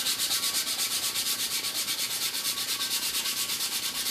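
220-grit sandpaper rubbed briskly back and forth by hand over a painted stainless-steel Hydro Flask, about four strokes a second, scuffing off the top layer of paint.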